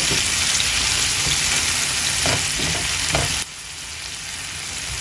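Sliced onion and tomato sizzling in hot oil in a nonstick frying pan, with a few soft strokes of a silicone spatula stirring them. The sizzle drops abruptly quieter about three and a half seconds in.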